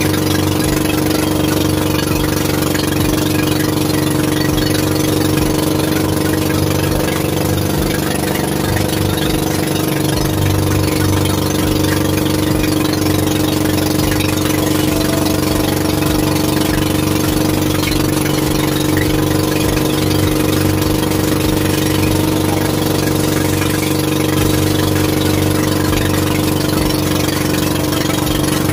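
Fishing boat's engine running steadily at an even speed, a constant engine hum.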